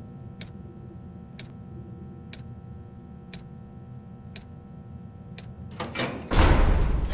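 Clock ticking about once a second over a low steady rumble. Near the end a sudden loud, noisy sound starts and runs on.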